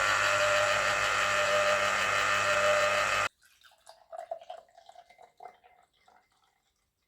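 A small electric kitchen appliance's motor runs steadily with a hum, then switches off abruptly a little over three seconds in. Soft clinks and light drips follow and fade out.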